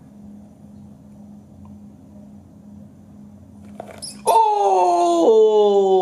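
A man's long, drawn-out exclamation, like a drawn-out "whoa", breaking in suddenly about four seconds in and sliding steadily down in pitch over about three seconds, as a Goliath bird eater tarantula seizes a live pinkie mouse.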